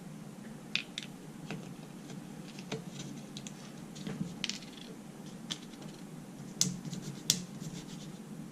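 Small metal clicks, taps and light scraping as a screwdriver and small carburetor parts are handled while the float-needle seat is taken out. Scattered taps, with a sharper one about a second in and two more near the end.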